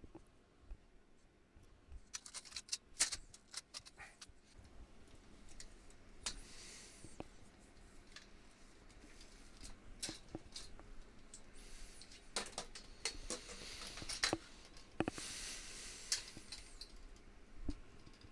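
Scattered light metallic clicks and clinks of steel canopy-frame parts being handled, with a few short scraping or rustling sounds in between.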